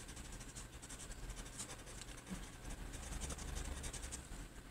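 Paper blending stump (tortillon) scrubbing back and forth over a paper tile, a faint scratchy rustle, as pencil shading is smudged into a gradient.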